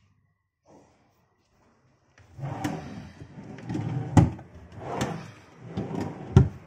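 Wooden cabinet drawers sliding open and being pushed shut twice, each closing ending in a sharp knock, the last one the loudest.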